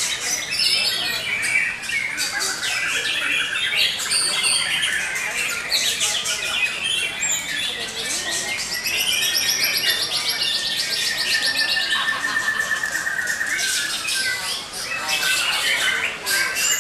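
Several white-rumped shamas singing at once in a dense, overlapping chorus of rapid chattering phrases, whistles and trills, with a long trill about nine seconds in.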